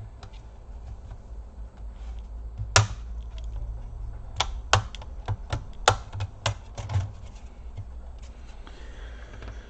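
Plastic clips of a Samsung laptop's case snapping loose as the case is pried apart: one sharp click about three seconds in, then a quick run of clicks over the next few seconds.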